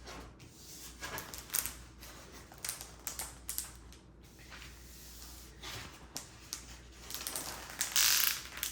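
Thick plastic cover film on a diamond painting canvas crinkling and crackling as the canvas is handled, in scattered short bursts, with a longer, louder rustle near the end.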